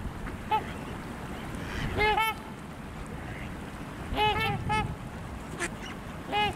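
Swans calling in short honks: two about two seconds in, a quick run of three or four around four to five seconds, and one more near the end. A steady low rumble runs underneath.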